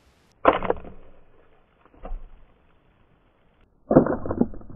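A slowed-down replay of a CO2 air pistol shot striking an aluminium drinks can: two deep, drawn-out bangs that fade slowly, about half a second in and again near the end, with a fainter knock in between.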